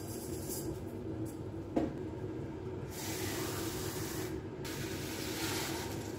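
Kitchen tap running into the sink in two spells, the first about three seconds in and the second just after a short break, over a steady low hum. A single knock about two seconds in.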